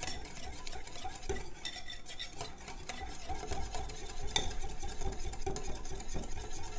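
Flat wire whisk stirring a thick mayonnaise-and-ketchup sauce in a ceramic bowl: continuous wet scraping with many small clicks of the wires against the bowl.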